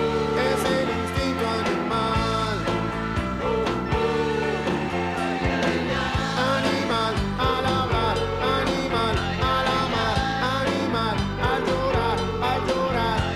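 Mexican urban rock song playing, a full band with electric guitar, bass, keyboard and drums at a steady beat.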